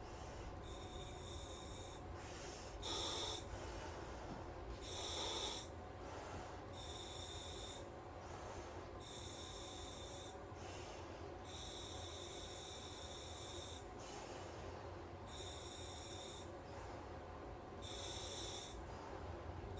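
Breathing through a SMACO full-face dive mask's demand regulator on surface-supplied air: about nine breaths, each a short hiss of air through the valve. There is a little more breathing resistance than usual.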